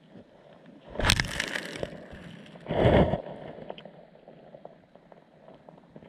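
Two bursts of water sloshing and splashing, about a second in and about three seconds in, picked up by a camera underwater, so they sound muffled and boomy. Faint small ticks run between them.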